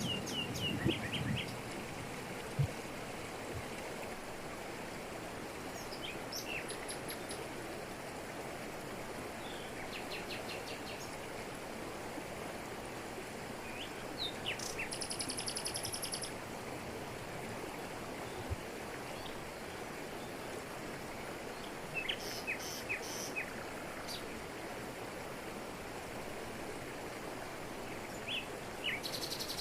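Steady rush of a jungle waterfall falling over rocks, with birds calling now and then over it: short runs of high chirps several times, and a high buzzing trill about halfway through and again near the end.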